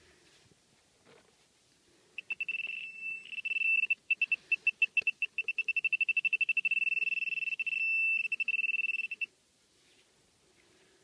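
Handheld metal-detecting pinpointer beeping high-pitched, its beeps quickening into a near-continuous tone from about two seconds in until it stops abruptly near nine seconds in: the signal of a metal target right at the probe's tip.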